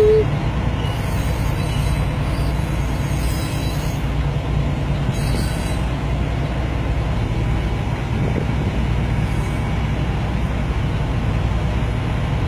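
Steady low rumble of a double-stack container freight train rolling past, heard from inside a big-rig cab. A held horn note cuts off just as it begins.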